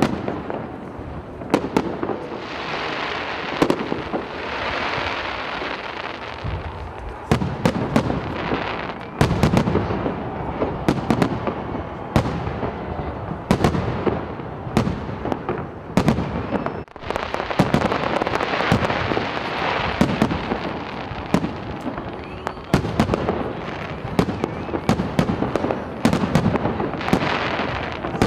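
Fireworks going off continuously: many sharp bangs, some in quick clusters, over steady crackling and sizzling from the bursting shells.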